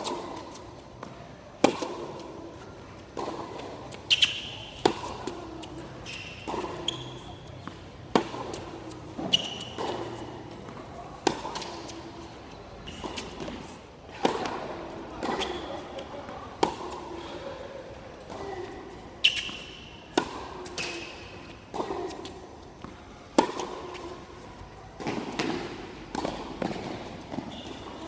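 Tennis balls struck by rackets and bouncing on a hard court during a rally and serves, a sharp hit about every one to one and a half seconds.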